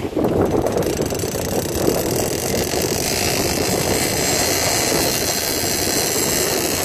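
Charter boat's engine running steadily under wind and sea noise.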